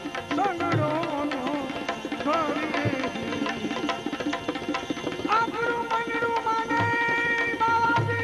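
Instrumental passage of Gujarati devotional folk music: tabla strokes under an ornamented melody line, which gives way to steady held chords about five seconds in.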